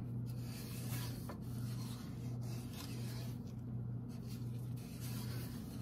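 Silicone spatula scraping around the sides of a stainless-steel mixing bowl, rubbing through thick cake batter and flour in uneven strokes.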